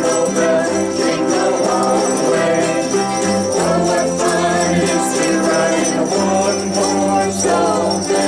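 A ukulele group strumming a children's Christmas song, with jingle bells ringing along. Low bass notes hold steady underneath.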